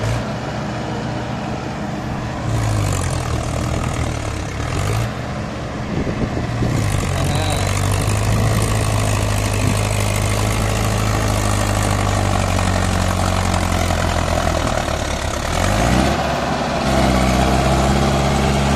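Mahindra Yuvo 585 tractor's four-cylinder diesel engine working under load, towing a fully loaded trolley across a field. The engine note swings up and down a few times in the first seconds, holds steady through the middle, then dips and climbs again about sixteen seconds in.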